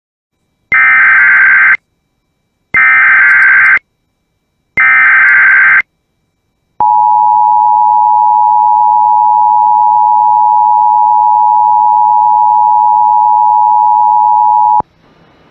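Emergency Alert System activation: three one-second bursts of the SAME digital header, a two-pitch data tone, about a second apart. These are followed by the steady two-tone EAS attention signal (853 and 960 Hz), held for about eight seconds and then cut off. The signal announces a tornado warning.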